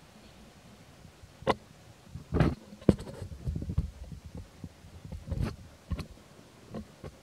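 Irregular short knocks and dull, low thumps with a little scratchy rustling, loudest around two and a half and five and a half seconds in, with sharper clicks near three and six seconds.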